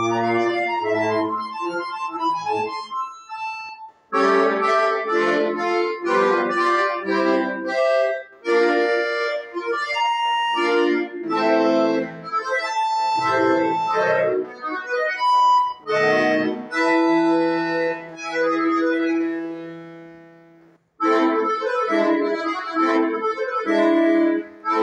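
Bayan (Russian chromatic button accordion) playing solo: quick phrases of chords and runs broken by short pauses, then a long held chord that fades away about three-quarters of the way through before the playing starts again.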